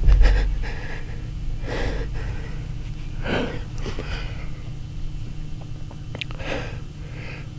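A man breathing hard, with several deep, audible breaths a second or more apart: a hunter's excited breathing right after shooting a buck.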